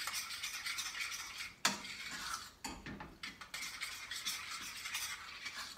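A spoon stirring and scraping through thick cheese sauce in a stainless-steel frying pan, with a couple of sharper clinks of the spoon against the pan. The scraping stops abruptly near the end.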